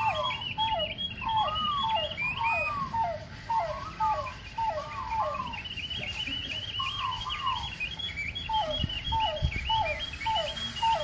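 Imitation bird calls whistled by a performer: a short hooked whistle that dips and curls in pitch, repeated steadily nearly twice a second, with a brief pause midway.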